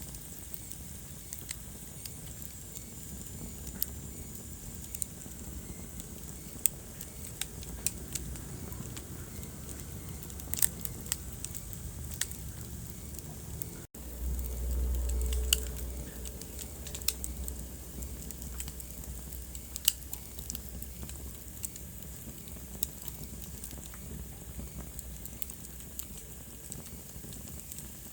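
Wood fire crackling: irregular sharp pops and snaps over a steady low hiss. About halfway through, the sound cuts out for an instant, then a low rumble swells for about two seconds.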